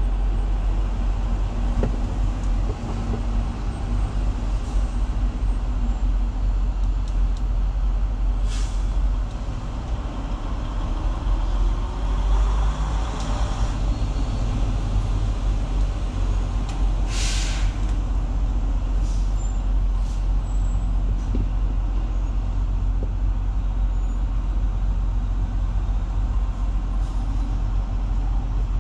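Semi-truck diesel engine idling with a steady low rumble, with two short hisses of air, about a third of the way in and a little past halfway.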